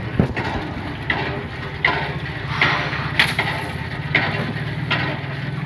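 A motor or engine running steadily with a low hum, and short sharp noisy sounds repeating about once a second over it.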